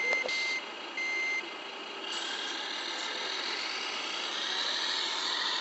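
RC Mercedes-Benz SK 3544 8x8 truck's Servonaut sound module playing reversing beeps, which stop about a second and a half in. Its simulated diesel engine sound then runs on, getting a little louder and higher toward the end as the truck drives off.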